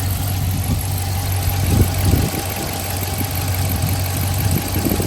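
Dodge Charger R/T's 5.7-litre HEMI V8 idling steadily while hot, at about 228 °F, with its electric radiator cooling fan not running.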